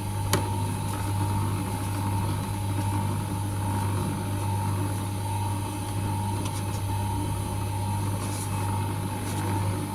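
Eyeglass lens grooving machine's motor running with a steady low hum and a steady higher tone, with one sharp click just after the start.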